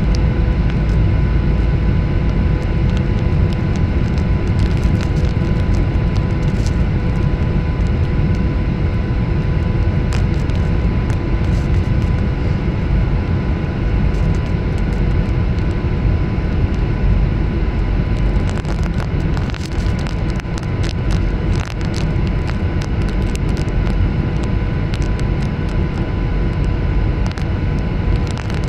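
Airliner cabin noise on approach with the flaps lowered: a loud, steady rumble of engines and airflow, with a steady hum of several fixed tones over it. Scattered light ticks and rattles come in about two-thirds of the way through.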